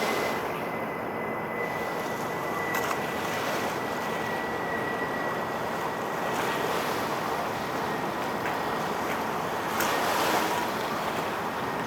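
Steady rushing outdoor noise of wind and water, with a faint high whine slowly dropping in pitch.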